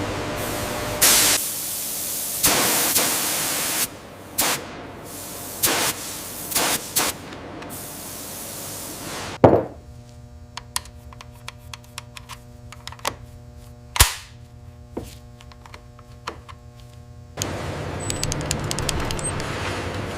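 Factory sounds: a run of hissing bursts that start and stop suddenly, then a steady machine hum with many sharp metallic clicks and one loud clank, then steady hissing noise again.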